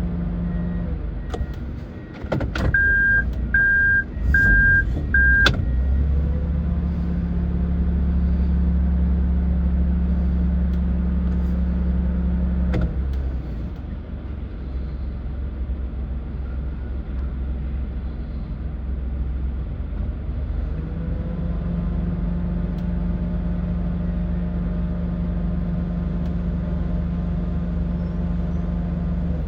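Vehicle engine running steadily, heard from inside the car, its hum dropping away about 13 seconds in and coming back about 21 seconds in. Early on, four short electronic beeps sound in quick succession.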